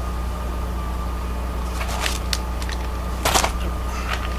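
Steady low electrical hum with a thin high tone above it, broken by a few short light clicks from keys and small lock parts being handled on the bench. The loudest click comes a little over three seconds in.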